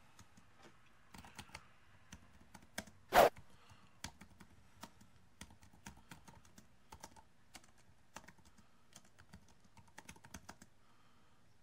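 Scattered light clicks of typing on a computer keyboard, with one much louder knock about three seconds in.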